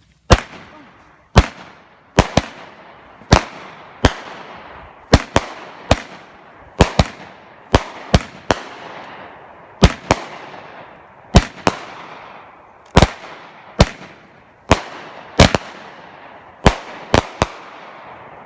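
Aerial fireworks going off in a long, rapid series of about two dozen sharp bangs, one or two a second and often in close pairs. Each bang is followed by a fading crackling hiss.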